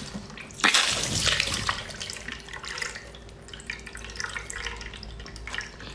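Wet slurping, sucking and squelching as a soft, juicy chili-oil-soaked piece of seafood is bitten and sucked at, with juice dripping, in irregular bursts that are loudest about a second in.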